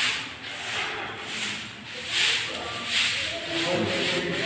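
Hand broom brushing across a concrete floor in repeated swishing strokes, a little more than one a second.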